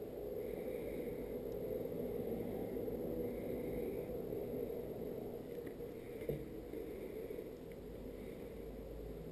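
Steady low hum under faint rubbing and handling as a sticker is peeled and pressed by hand onto a skateboard deck, with a single click about six seconds in.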